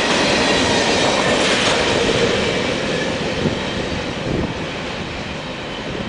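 The last covered hopper cars of a long freight train rolling past, steel wheels running on the rails. The sound fades as the end of the train moves away.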